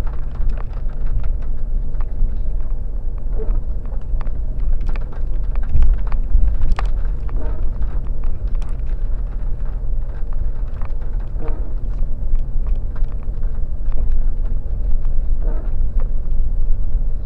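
Off-road vehicle driving a rough track: its engine running with a steady low rumble, and frequent short knocks and clatters as it goes over the uneven ground.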